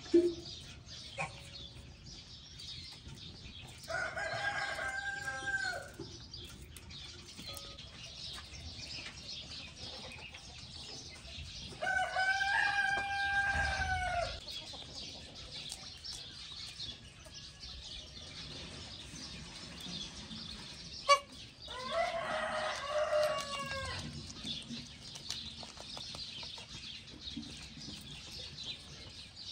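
A rooster crowing three times, each crow about two seconds long, with a single sharp knock shortly before the third crow.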